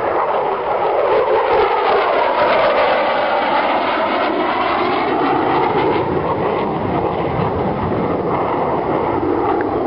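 Four-engine turboprops of a C-130J Hercules running loud and steady, the tone sweeping down and back up through the middle as the aircraft moves past.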